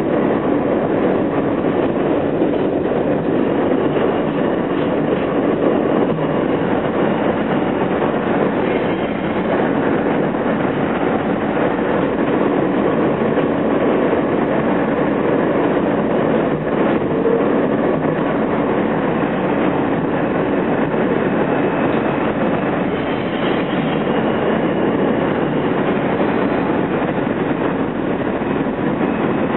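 An R160A-2 subway car, heard from inside, running along elevated track with a steady rumble of wheels on rail.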